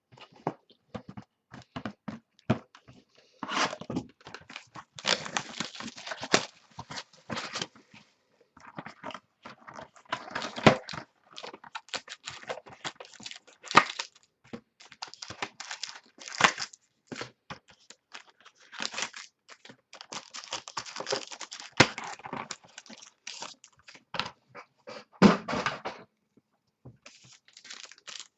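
Football trading card packs and boxes being torn open and handled: wrappers tearing and crinkling, with irregular clicks and light knocks of cards and cardboard.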